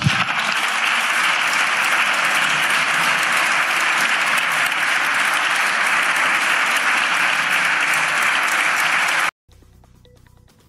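Parliamentary deputies applauding from their benches, a steady dense clapping that cuts off abruptly about nine seconds in.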